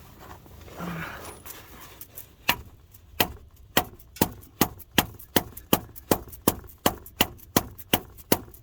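Hammer blows on a rod driven into the grease-packed pilot bearing bore, about fifteen sharp strikes starting a couple of seconds in and settling to about three a second. The blows build grease pressure that forces the old pilot bearing out of the crankshaft end of a BMW E39 528i.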